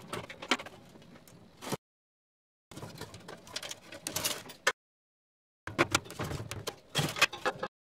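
Clicks, scrapes and knocks of hand work on a Suburban NT-34SP RV furnace blower: a screwdriver turning screws into the metal motor base and the blower housing being handled. The sounds come in three short bursts, each cutting off suddenly.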